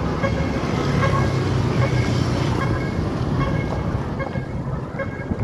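Steady roadside traffic noise: vehicle engines running and tyres on the road. A faint pitched tone comes and goes about once a second over it.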